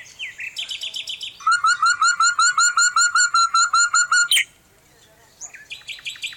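Nightingale song: a short rattle, then a loud run of rapid repeated notes, about six a second, ending in a sharp whip note, and after a brief pause a new phrase of quick notes begins.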